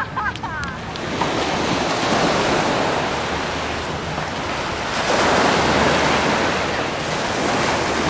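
Small surf washing up on a sandy beach: a steady rush of waves that swells a little about five seconds in.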